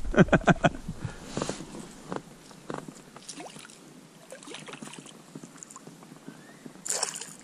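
A hooked pike splashing and swirling at the surface right beside an inflatable boat as it is played toward the landing net, with light clicks and knocks of the tackle. A louder splash comes near the end.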